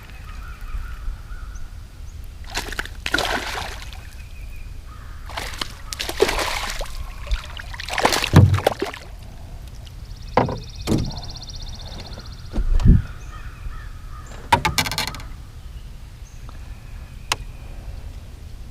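Water splashing and sloshing in several short bursts, with a few sharp knocks in between, as a freshly caught bass is handled at the water's edge. A short buzzing rattle is heard about ten seconds in.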